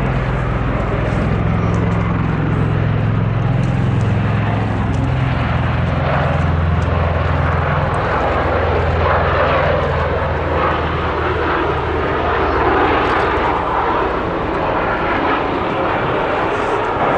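Military aircraft flying past, loud and steady. A deep engine drone sits under a rushing noise; the drone sinks a little in pitch and dies away about two-thirds of the way through, while the rush carries on.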